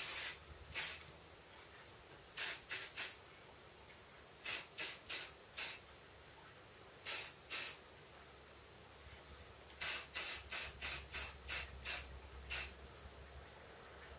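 Aerosol spray paint can spraying in short bursts, about twenty in all, each under half a second, in quick clusters with pauses between: a coat of black paint going onto the shotgun's fore end.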